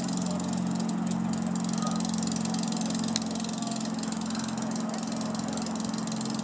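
FS E636 electric locomotive running with a steady low hum of a few held tones. A single sharp click sounds about three seconds in.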